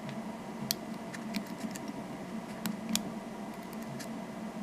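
Bobby pins working in a Schlage deadbolt's keyway: a scattering of light metallic clicks and ticks, about six in the first three seconds, over a steady low hum.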